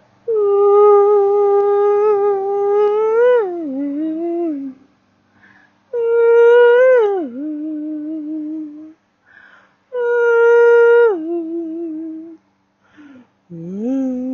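A woman's wordless vocal toning: three long held notes, each gliding down to a lower wavering note, with a fourth starting near the end.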